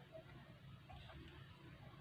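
Near silence: room tone with a faint low hum and a few faint small ticks.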